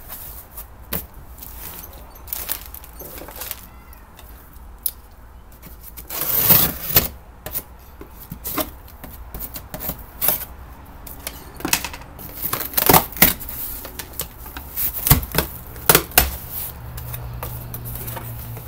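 A cardboard shipping box being handled, cut and pulled open by hand: a string of clicks, scrapes and rustles of cardboard, with a louder scraping burst about six seconds in.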